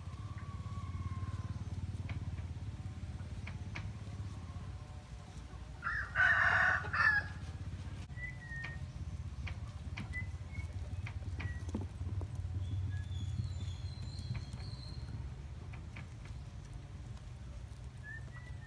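A rooster crows once about six seconds in, the loudest sound here, over a steady low hum. Short high bird chirps follow in the second half, along with faint light taps.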